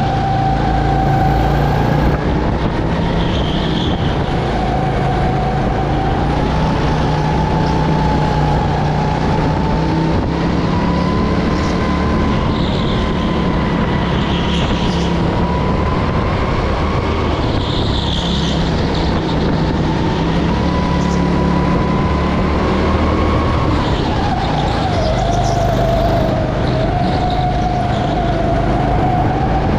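Go-kart engine running hard on a lap, heard from the driver's seat, its pitch rising and falling with speed and dipping briefly twice as it slows for corners.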